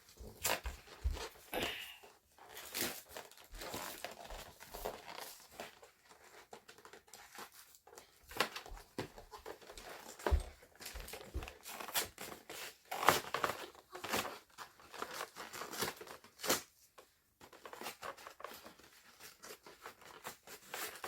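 Plastic packaging wrap crinkling and tearing in irregular crackles as it is worked off a box of Pokémon cards.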